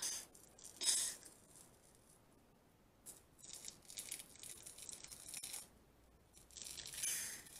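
Dried charcoal peel-off mask being pulled off the skin of the cheek: faint crackling, tearing noise in several pulls, the longest in the middle.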